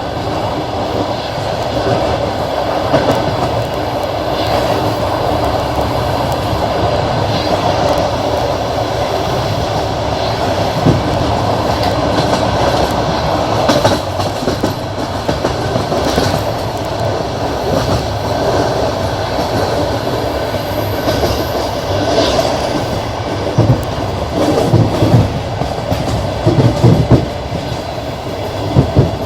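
Passenger train's wheels clattering over rail joints at running speed, over a steady rolling rumble. The knocks come thicker and louder near the end.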